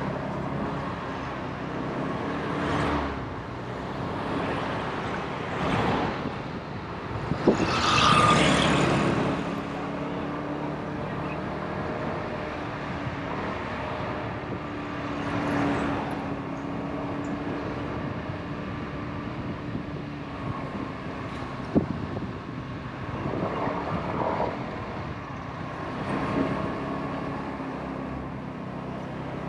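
A motorbike's engine running steadily while riding along a street, heard with wind and road noise. A louder rush of noise comes about eight seconds in, and there are two sharp clicks, one just before it and one about twenty-two seconds in.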